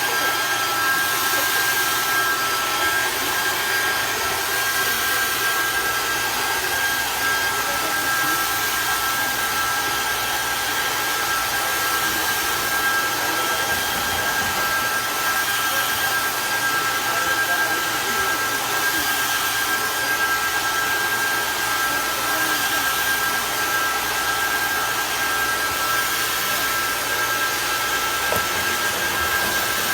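An RC spraying truck's small electric sprayer running steadily: a constant hiss with a steady high whine.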